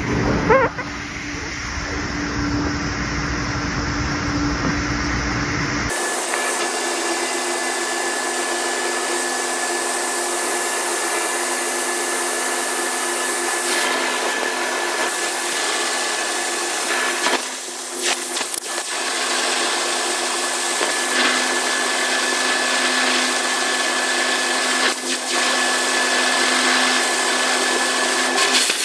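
ANCA FX7 CNC tool grinder running with its coolant oil spraying inside the enclosure: a steady loud hiss with a steady hum and a high whine. The low rumble cuts out abruptly about six seconds in.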